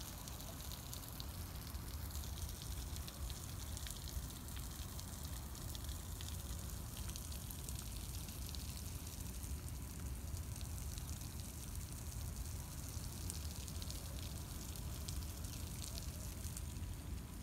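Steady outdoor noise: a low rumble with a fine, crackling hiss over it that does not change.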